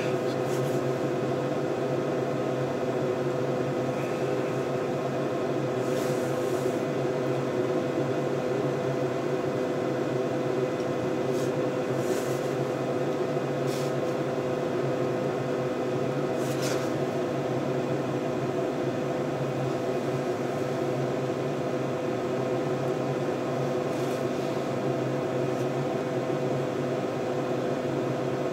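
Steady whirring hum of bench test equipment's cooling fans and mains hum, unchanging throughout, with a few faint ticks.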